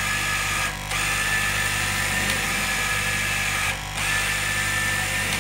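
Electric straight-knife cloth cutting machine running, a steady motor hum with a high grinding hiss from its built-in knife sharpener working along the blade. The hiss drops out briefly twice, about three seconds apart.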